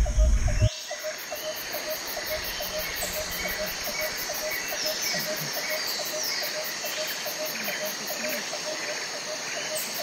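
Outdoor woodland ambience: scattered bird chirps over a fast, even ticking of about four a second. A low rumble on the microphone cuts off abruptly under a second in.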